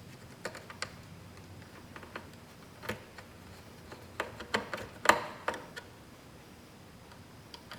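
Scattered sharp clicks and taps of a Phillips screwdriver and small metal screws as a display screen is screwed back into place, a few early and a quick cluster about four to six seconds in.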